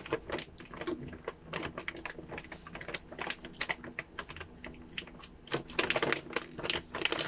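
Stiff plastic snack pouch crinkling and crackling as it is handled and its resealable top is pressed closed: a rapid, irregular run of small clicks with no break.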